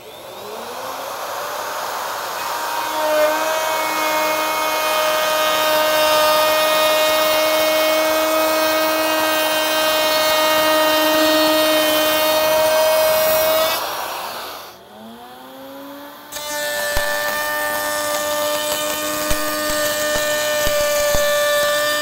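Electric router spinning up to a steady high-pitched whine as its bit cuts along a board edge, then winding down about 14 seconds in. Shortly after, a table-mounted router spins up and runs steadily with a few faint clicks while a board is fed past the bit.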